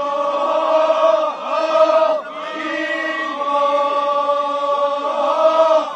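A group of voices chanting together in long held notes. The chant pauses briefly about two seconds in, then starts a new phrase, and breaks again near the end.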